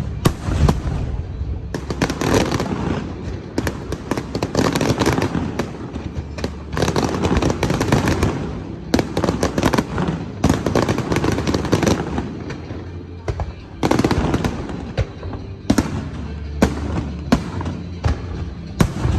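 Aerial fireworks bursting in rapid volleys: many sharp bangs with dense crackling between them.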